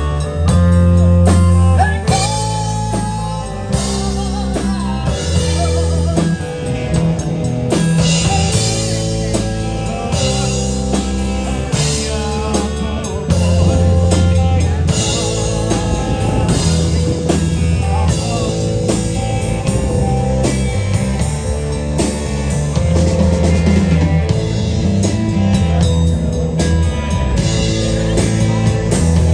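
Live rock band playing loudly: drum kit, electric guitar and electric bass, with a heavy bass line shifting from note to note.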